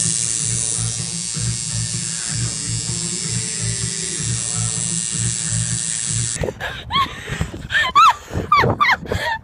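Tattoo machine buzzing steadily at a high pitch over background music with a steady beat, stopping abruptly about six seconds in. It is followed by a string of short, high calls that bend up and down.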